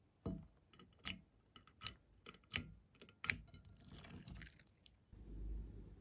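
A run of sharp clicks and taps, about one every 0.7 seconds with fainter ticks between, then a brief rustle.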